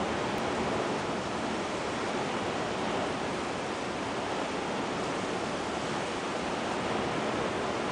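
Heavy rain pouring steadily onto a lake, a constant even hiss with no breaks.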